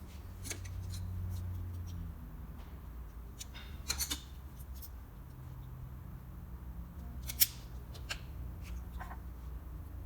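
A few sharp clicks and snaps of hand work on truck parts, the loudest about seven seconds in, over a low steady rumble.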